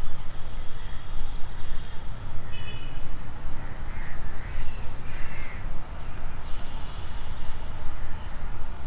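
Crows cawing in the park trees, a few calls about halfway through, among thinner, higher bird calls, over a steady low rumble.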